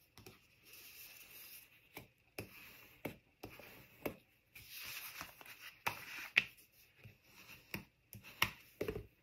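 Bone folder scraping along a fold line in card stock to sharpen the crease, with the paper rubbing and rustling and several sharp clicks of the card against the table.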